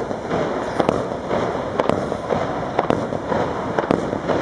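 Fireworks going off: many sharp, irregular cracks and bangs, several a second, over a continuous rushing crackle.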